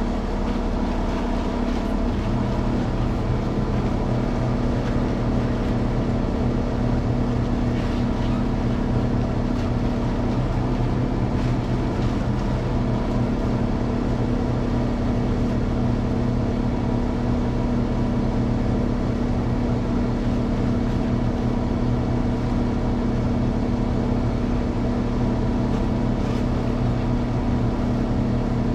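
An engine running steadily at an even speed, a constant drone that does not change.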